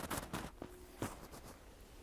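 Footsteps crunching in snow: a few quick crunches in the first second, then a quieter stretch.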